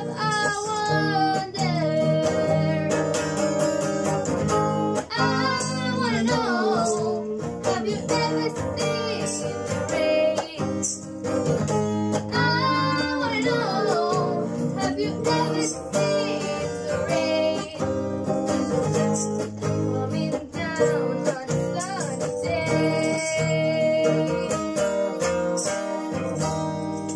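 Acoustic guitar strummed steadily while a woman sings the melody, with a tambourine jingling along: a family playing a song together at home.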